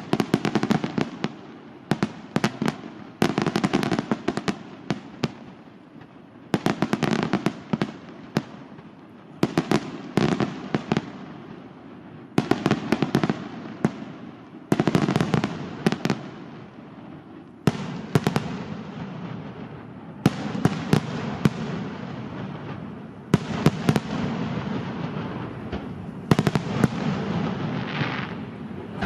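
Aerial fireworks display: volleys of shell bursts, several sharp bangs in quick succession, coming about every two to three seconds. A low rolling rumble of echoes fills the gaps between the volleys.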